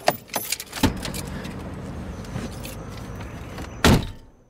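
Clicks and clatter of someone climbing out of the driver's seat of an SUV, then the car door shut with a heavy thud near the end.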